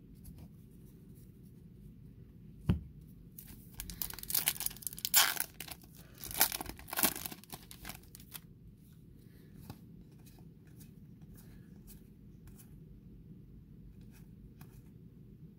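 A baseball card pack's wrapper torn open and crinkled for about five seconds, after a single knock a few seconds in. Faint clicks and slides of the cards being handled and fanned follow.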